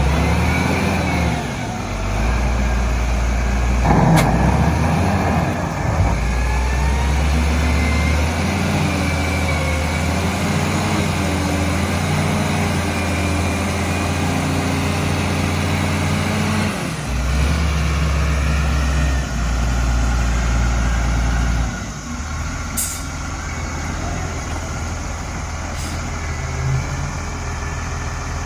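Heavy diesel engine running, its revs stepping up and down, then settling to a steadier, lower run about 22 seconds in. There is a sharp knock about 4 seconds in.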